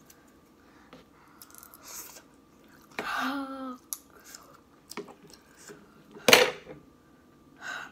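A person chewing a mouthful of Samyang spicy noodles, with small clicks. A pained vocal cry comes about three seconds in, at the heat of the noodles. The loudest sound is a short rush of noise a little after six seconds, with a softer one near the end.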